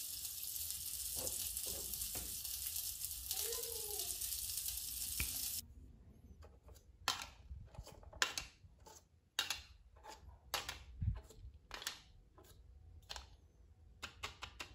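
A steady frying sizzle for about the first five and a half seconds, which cuts off suddenly. Then plastic toy food skewers and a plastic tray click and tap irregularly as they are handled.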